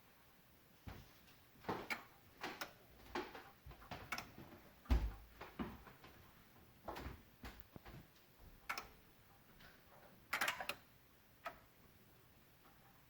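Irregular clicking under the hood of a 2016 Honda Odyssey with the engine turned off, coming from around the PCM and VSA control module: short sharp clicks at uneven intervals, some in quick pairs. It is the fault symptom that comes with the engine, VSA, LDW and FCW warning lights being lit.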